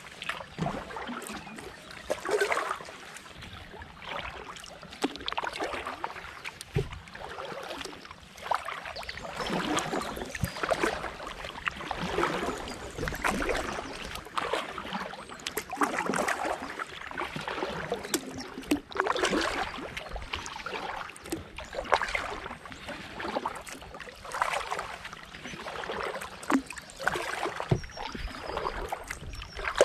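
Kayak paddle strokes in calm canal water from an inflatable kayak: the blade dips and splashes, with water dripping off it, in swells about every two to three seconds.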